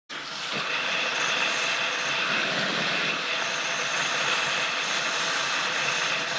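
Steady rush of wind and water hitting a kiteboarder's action camera as the board planes across choppy water, with a few faint steady high tones over it.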